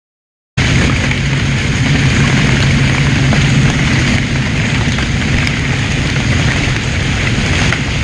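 Loud, steady rain noise with a low rumble underneath, cutting in suddenly about half a second in.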